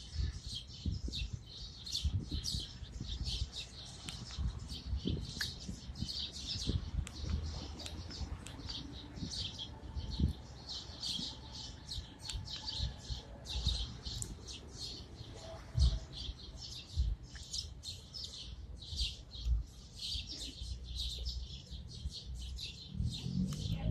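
A flock of small birds chirping constantly, many short high calls overlapping, with occasional low thumps.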